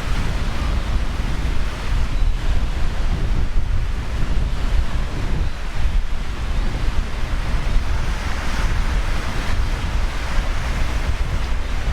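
Wind buffeting the microphone: a steady, loud low rumble with a rushing hiss over it.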